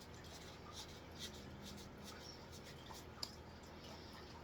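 Trading cards being handled and flipped through: faint rustling with scattered soft clicks, one sharper tick about three seconds in.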